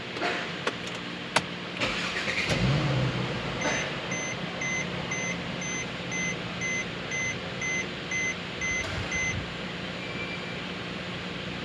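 Car warning chime beeping evenly about twice a second for some six seconds, after a few sharp clicks and a short low rumble, over a steady low hum.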